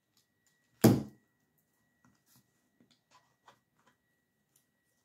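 A single loud knock about a second in, fading quickly, followed by faint small clicks and rustles of hands handling ivy stems in a flower arrangement.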